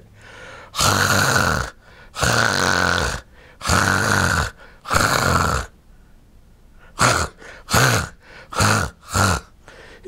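Sleep apnea snoring, harsh and uneven: four long snores of about a second each, a gap of silence of over a second, then five short snores in quick succession.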